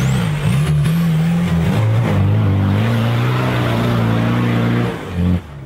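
Classic Range Rover's engine revving hard and held at high revs under heavy load as it tries to drive out of a deep mud rut. Near the end it surges once more, then the revs drop off suddenly.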